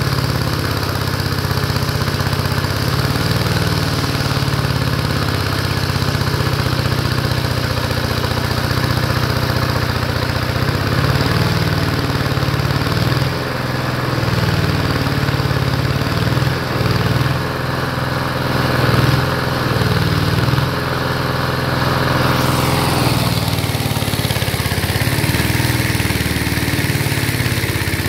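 Small single-cylinder engine running steadily while it belt-drives a generator that powers an arc welder. About three-quarters of the way through a brief falling pitch comes in, followed by added hiss higher up.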